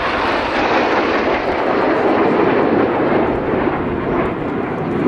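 BAE Systems Hawk T1 jet trainers of the Red Arrows flying overhead in formation. Their Adour turbofan engines make a loud, steady rushing jet noise.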